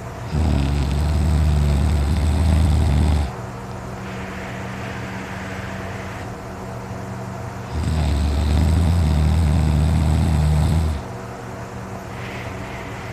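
A man snoring in deep sleep: two long, loud snores of about three seconds each, several seconds apart, over a steady low hum.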